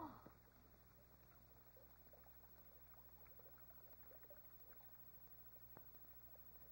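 Near silence on an old film soundtrack: the last of the music dies away at the very start, then only a steady low hum with a few faint ticks and one sharper click near the end.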